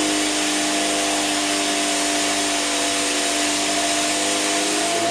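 Vacuum cleaner running steadily on carpet: a constant motor tone over the rush of air.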